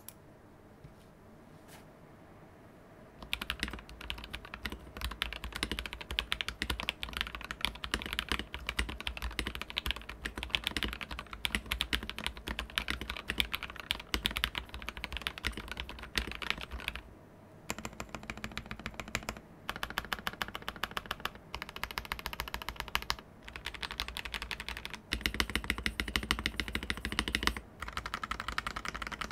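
Mechanical keyboard typed on quickly: Gateron Red linear switches under CNC aluminum Aluvia keycaps, in a Mark:65 polycarbonate-case board with an aluminum plate. A dense run of keystrokes starts about three seconds in, broken by a few brief pauses.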